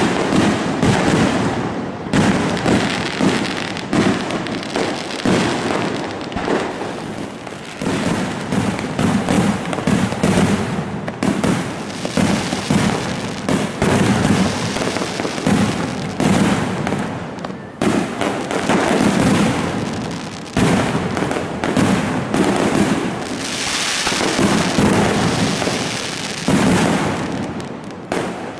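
Fireworks display: a rapid, near-continuous barrage of aerial shell bursts and crackling, bang after bang with only brief lulls.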